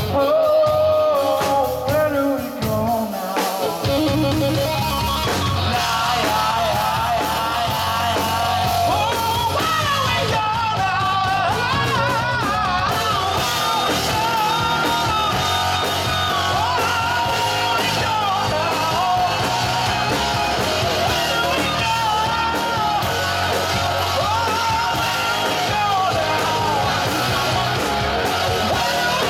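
Live rock band playing: two electric guitars, bass guitar and drum kit, with a singer. After a short thinner passage with pitches sliding down, the full band comes in about four seconds in.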